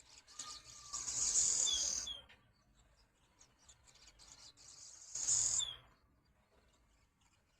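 Swallows twittering: two high-pitched, buzzy song phrases, each ending in a short down-slurred note. The first comes about a second in and the second about five seconds in.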